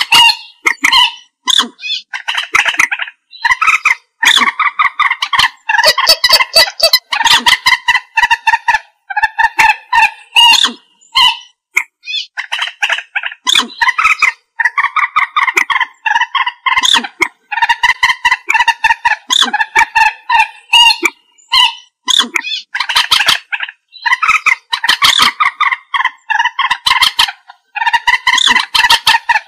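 Common moorhen calling over and over: harsh, clucking calls given in quick runs, with short pauses between runs.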